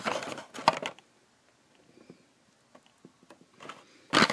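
Plastic blister pack of a carded toy car being handled: crinkling and clicking for about a second, a quiet stretch, then a loud burst of crackling and clatter near the end as the card is moved quickly.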